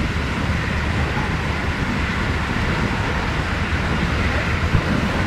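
Steady rumble and rolling noise of a passenger train running at speed, heard from inside the carriage.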